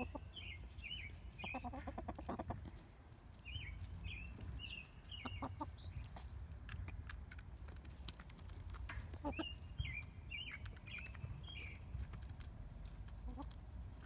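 Backyard hens clucking, with three bursts of short high-pitched calls, several quick notes each, and scattered light taps as they peck at a hanging birch-log treat.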